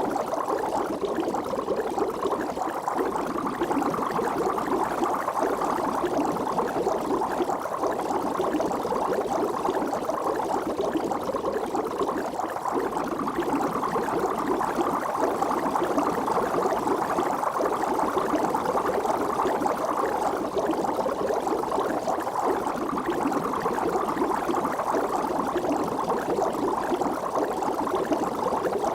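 Water bubbling steadily: a dense, even churn of bubbles with no pauses.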